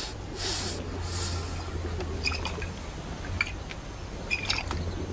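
Homemade gourd water pipe bubbling and gurgling as it is smoked: a few airy swells, then small scattered pops, over a steady low rumble.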